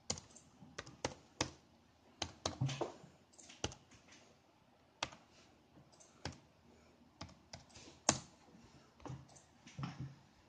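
Typing on a computer keyboard: irregular keystrokes with short pauses between bursts.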